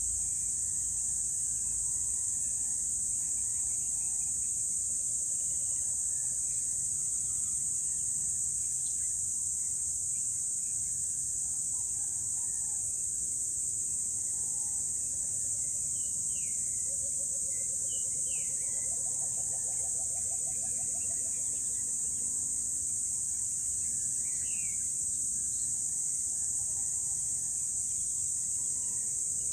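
Steady high-pitched drone of an insect chorus, with scattered faint bird chirps and a brief low pulsed trill about two-thirds of the way through.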